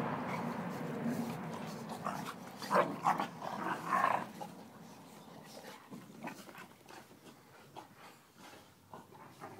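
Pit bull terrier adult and puppy play-fighting, with short growling dog sounds. The sounds come in a loud cluster about three to four seconds in and are quieter after that.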